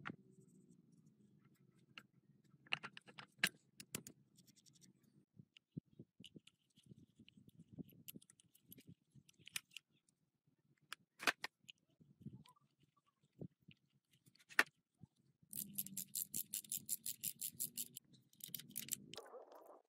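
Restoration workshop hand-tool work: scattered clicks and scrapes, then a fast, even run of scraping strokes, about eight a second, for a couple of seconds near the end.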